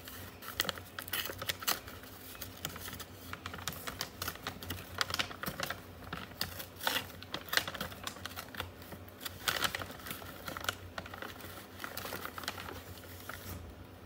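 Brown paper carry-out bag rustling and crinkling in quick, irregular crackles as it is unrolled, opened and handled. The crackling stops shortly before the end.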